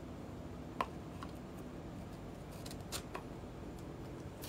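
A few faint, sharp clicks and light taps, about six in all, from handling an acrylic LED night lamp and its base, over quiet room tone.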